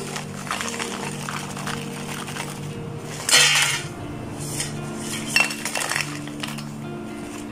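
Crisp fried golgappe (pani puri shells) tapping and rattling against a white ceramic plate as it is handled and tilted, with one louder clatter about three seconds in and a few lighter taps after it. Soft background music with sustained notes plays underneath.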